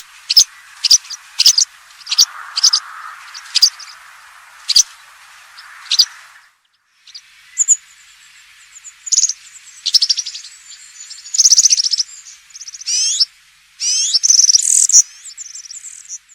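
European serin calling and singing: first a string of sharp, high single chirps about two a second, then, after a brief break, a fast, high, jingling song of rapid trills.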